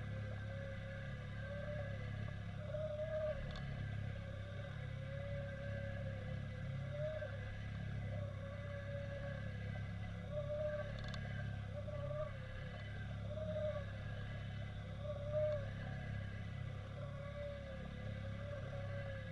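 Underwater sound picked up by a downrigger camera towed behind a trolling boat: a steady low hum of the boat's motor and propeller through the water, with a wavering tone that swells and falls about once a second.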